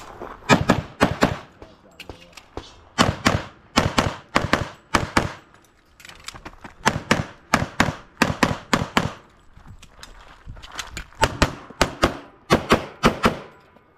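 Rapid pistol fire from a 1911-style single-stack pistol: quick strings of shots, mostly in fast pairs, broken up by pauses of a second or two.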